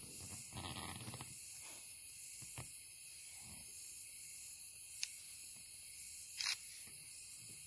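Faint steady high-pitched hiss of night background, with a brief rustle about half a second in and a few sharp clicks, the loudest about five and six and a half seconds in.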